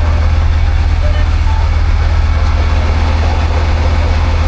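A large vehicle engine running steadily at constant speed, a deep, even drone.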